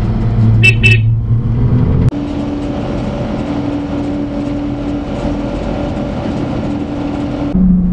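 1992 Daihatsu Hijet mini truck's 660cc engine and road noise heard from inside the cab while driving. About two seconds in the sound changes abruptly to a steadier, higher-pitched drone over an even road hiss.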